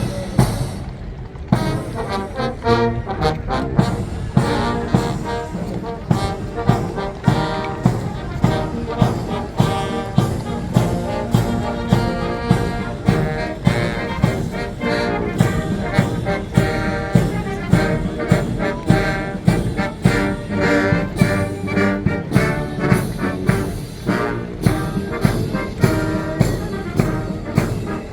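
Brass band playing a march with trumpets and trombones over a steady drum beat, typical of a British military band at a guard ceremony.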